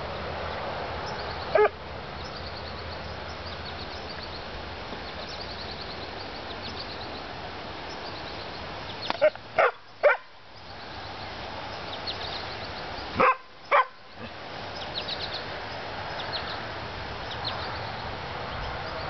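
A collie barking in single short barks: once about a second and a half in, three times in quick succession around nine to ten seconds, and twice more around thirteen to fourteen seconds. Faint high chirping runs underneath.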